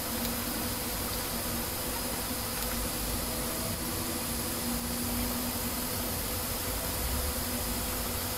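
Steady background hiss with a faint buzzing hum throughout, and no distinct events.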